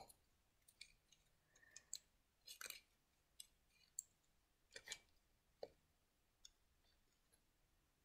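Faint, irregular clicks and taps of small pencil-sharpener kit parts being handled and fitted together, thinning out toward the end.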